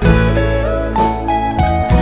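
Background music: a guitar-led track with a steady beat and a full bass line.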